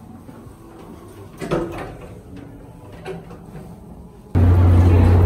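A restroom door is pushed open, with a soft knock about a second and a half in and handling rustle around it. Near the end a loud, steady low hum with rumbling noise cuts in abruptly.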